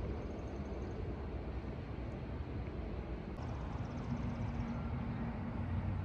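Steady low rumble of a distant engine running, with a low hum joining about four seconds in.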